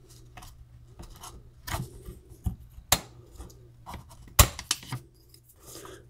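Fingers working a laptop RAM module out of its slot: scattered small clicks and light rubbing of plastic and the metal retaining clips, with the sharpest click about four and a half seconds in.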